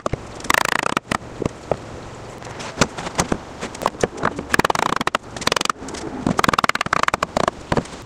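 An old wooden rocking chair being knocked and worked apart at its loose joints: sharp wooden knocks mixed with stretches of rapid crackling creaks.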